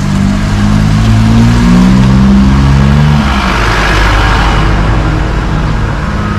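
Car engine running with road noise as the vehicle drives. The engine hum fades about three seconds in, and a rush of road noise swells after it.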